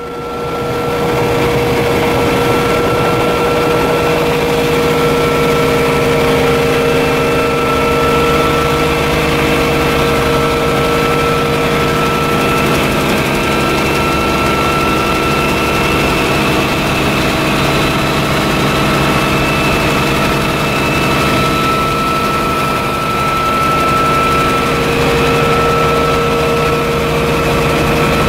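Bell 47G helicopter's piston engine and rotor running steadily during lift-off and climb-out, heard from inside the cabin.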